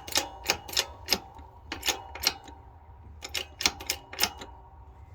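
A run of sharp, irregular clicks and taps, two or three a second, thinning out near the end, over a steady low hum.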